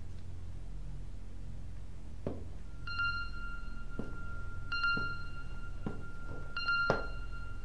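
Slow boot footsteps on a tiled floor, about a second apart, over a low steady hum. From about three seconds in, a high, held electronic tone sounds under them, with brighter ringing notes that come back every couple of seconds.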